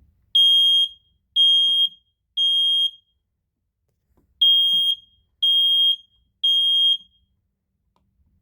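First Alert SA303 battery smoke alarm sounding its test alarm: two groups of three loud, high-pitched beeps with a pause between them, the standard three-beep evacuation pattern.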